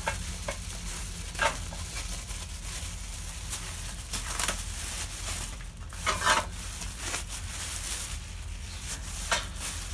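Black plastic garbage bag rustling and crinkling as it is handled and pulled off, in irregular bursts.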